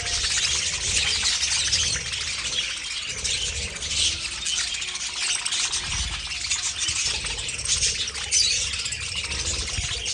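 A large flock of budgerigars chattering and chirping continuously, many short overlapping chirps, with a low rumble underneath.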